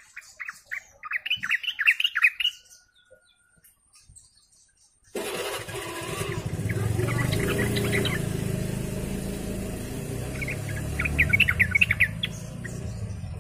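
Yellow-vented bulbul singing a rapid burst of short chattering notes. About five seconds in a motor vehicle engine starts up loud and runs steadily, and near the end the bulbul sings another quick chattering burst over it.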